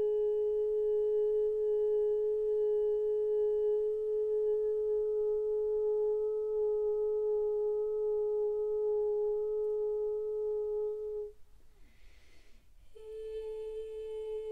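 A woman's voice toning a long, pure 'oo' note, held very steady for about eleven seconds; it breaks off for a breath, and a slightly higher note starts about a second and a half later.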